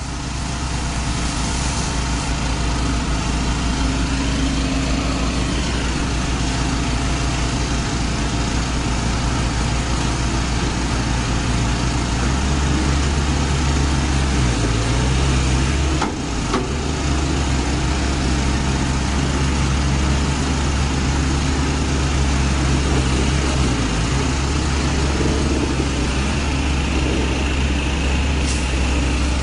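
Heavy diesel engine running steadily, with a short dip in level about halfway through.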